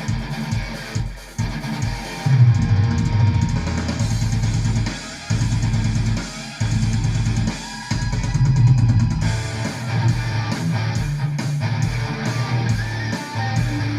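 Instrumental passage of a song, with a drum kit, a steady bass-drum beat and guitar, playing through a pair of Onkyo D-092TX two-way bass-reflex bookshelf speakers.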